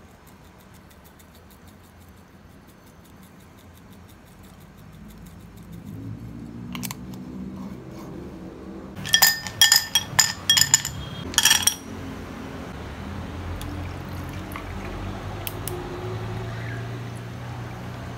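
Ice cubes dropped into a drinking glass, clinking sharply several times around the middle. Then a cold drink is poured from a pitcher over the ice, a steady pouring sound that runs on to the end.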